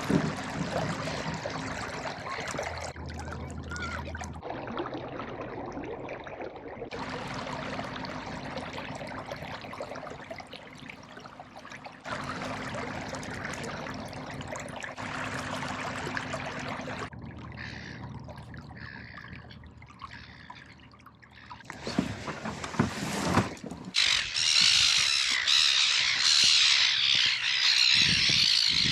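Lakeside outdoor noise in several abruptly cut segments: an even wash of water and wind, then a few knocks, and near the end a loud, dense chorus of many birds calling.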